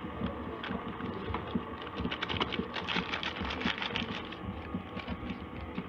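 Brown paper bag crinkling and crackling as hands squeeze and shake it out over a mixing bowl, a busy run of small crackles, thickest in the middle.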